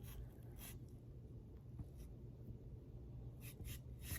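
Faint scratchy strokes of a cleaning rod being run through a stainless S&W 686 Plus revolver barrel: a few short scrapes, then a quick cluster of three near the end.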